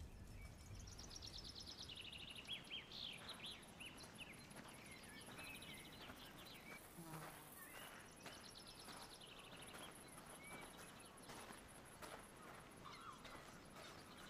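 Faint nature ambience: a steady high, pulsing insect buzz with bird chirps and short trills, loudest in the first few seconds, and a few soft ticks.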